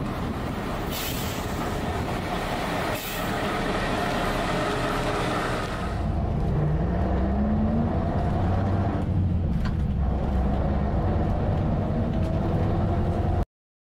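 A bus engine running, with two short hisses of air from its air brakes about one and three seconds in. From about six seconds it is heard from inside the bus cabin, a heavier low rumble whose pitch rises as the bus pulls away, until the sound cuts off suddenly near the end.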